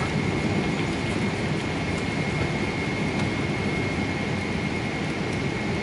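Steady cabin noise of a Boeing 777-300 on approach, heard from inside by a window seat: the jet engines and rushing airflow make a deep, even noise, with a thin steady high whine over it.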